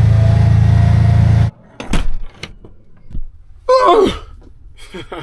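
Kawasaki Teryx4 UTV engine running steadily, then stopping abruptly about a second and a half in. A few sharp knocks and thunks follow.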